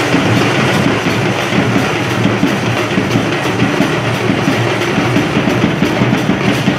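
Hand-held drums played in a fast, continuous rhythm, mixed with the noise of a large crowd.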